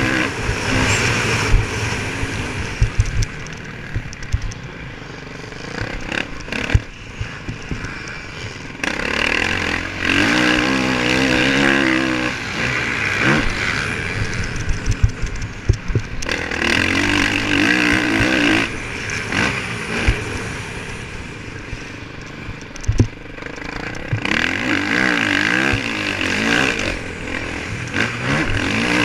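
Motocross bike engine heard from on board, revving up hard in several stretches and backing off in between, with sharp knocks and clatter from the bike along the way.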